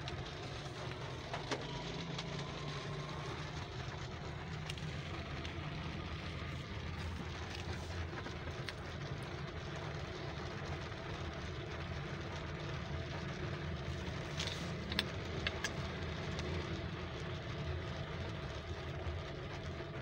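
Car engine running at low speed, heard from inside the cabin, with a steady hiss over it as the car drives through the rain. A few short sharp ticks come about a second and a half in and again around fifteen seconds in.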